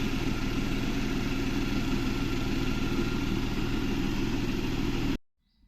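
Renault Kwid's three-cylinder petrol engine idling steadily, with a vibration that persists after a new fuel pump was fitted; the car has been logging a third-cylinder misfire. The sound cuts off suddenly near the end.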